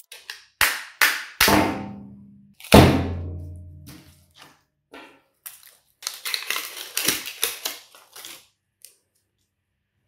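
Hammer blows on a microwave oven transformer's laminated steel core: four sharp strikes in the first three seconds, the last and loudest ringing on for about a second. A few seconds later comes a burst of rattling and scraping as the loosened steel laminations and insulation are pulled apart by hand.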